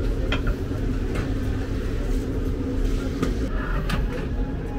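Steady low rumble of street noise with a few sharp clinks of a metal ladle against the pot and plates.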